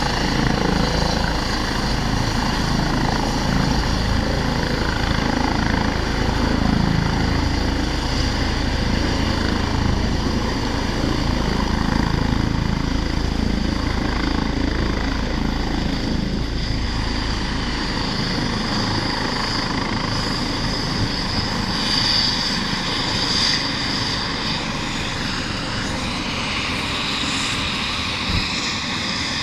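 Eurocopter EC135 twin-turbine helicopter running, with a deep rotor rumble and a high turbine whine. About two-thirds of the way through the deep rumble drops away, leaving the high whine more prominent.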